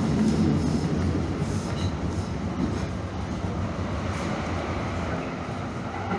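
Calgary CTrain light-rail car running along the track, heard from inside the car: a steady low rumble with rail noise and a few faint clicks, easing slightly in loudness toward the end.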